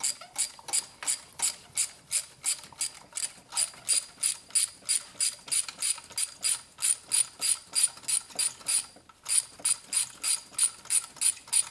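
Hand ratchet on a socket extension clicking steadily, about four clicks a second, as a spark plug is unscrewed counterclockwise. There is a brief pause a little past nine seconds.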